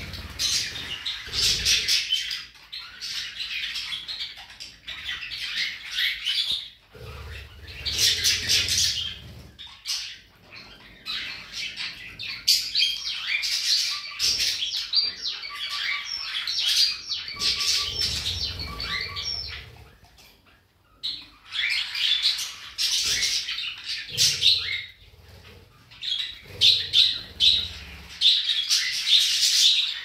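Pet birds chattering and chirping in a budgie-like warble, in bursts of a few seconds separated by short lulls.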